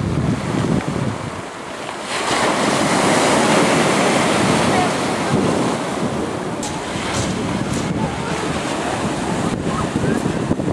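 Surf breaking and washing up a pebble beach, with wind buffeting the microphone; one wave breaks loudest about two seconds in and lasts a few seconds.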